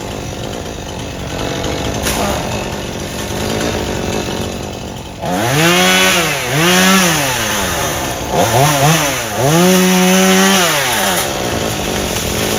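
Chainsaw's two-stroke engine cutting into an oak tree. About five seconds in it gets louder and revs up and down several times, its pitch rising and falling in about four swells.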